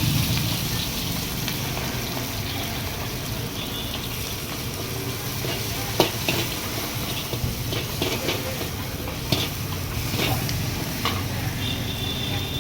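Food sizzling in a hot wok as it is stirred, with sharp clanks of a metal spatula against the pan, the loudest about six seconds in.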